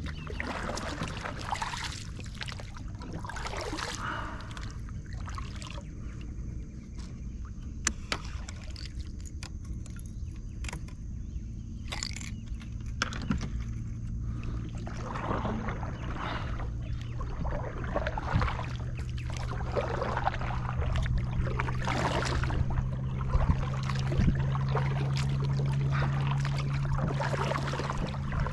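A plastic fishing kayak being paddled: water swishing and sloshing with each stroke, every second or two, with a few sharp knocks. A steady low hum runs underneath and grows louder in the second half.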